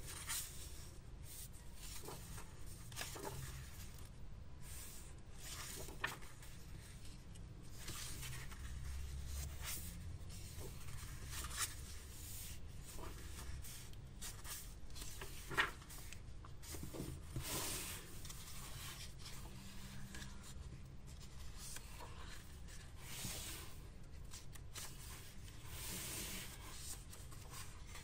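Pages of a hardcover sketchbook being turned and smoothed by hand: irregular paper rustling and rubbing, with a few sharp clicks, the loudest about halfway through.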